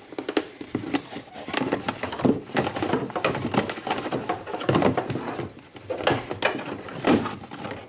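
A plastic bucket being handled and shifted in a kayak's hull hatch, with irregular clicks, knocks and scuffs of plastic and cord.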